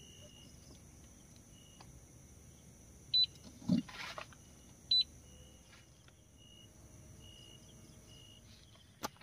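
Insects trilling steadily with short repeated high chirps, the sound of a jungle at night. A loud high double chirp comes about three seconds in and again about five seconds in, and a brief knock falls near four seconds.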